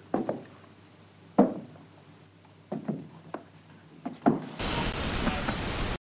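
A series of about eight sharp knocks at irregular intervals, then a loud steady hiss like static from about four and a half seconds in, which cuts off abruptly.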